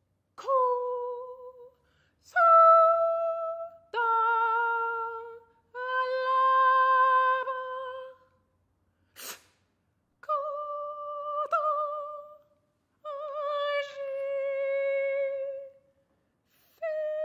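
Solo female voice singing a series of about seven separate held notes at a high pitch, each a second or two long with a sharp start and short silences between, the pitch changing from note to note, some notes wavering slightly. A short sharp noise, like a consonant or click, falls about nine seconds in.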